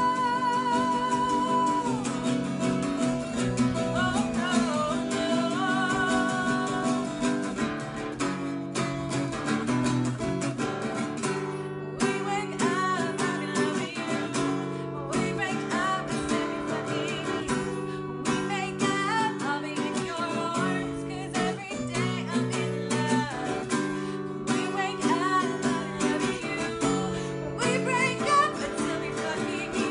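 A woman sings to a strummed acoustic guitar. She holds one long note with vibrato for about the first two seconds, then the melody moves on over the steady strumming.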